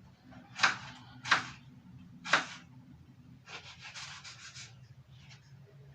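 Kitchen knife cutting eggplant on a chopping board: three separate cuts in the first two and a half seconds, then a quick run of about half a dozen short chops around four seconds in.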